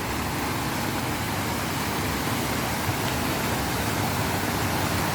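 Steady rushing of a waterfall, close by.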